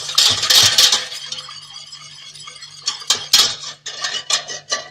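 A utensil stirring sugar, cornstarch and a little cold milk in a bowl, scraping and clinking against the sides in quick strokes. The strokes ease off about a second in and pick up again at about three seconds.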